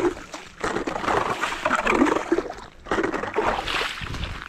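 Hand ice auger being lifted out of a freshly drilled hole in river ice, with wet ice shavings and slush splashing and crunching around the hole in several uneven bursts.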